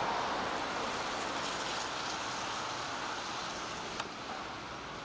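Steady rushing of water, cutting in abruptly and easing slightly, with a single click about four seconds in.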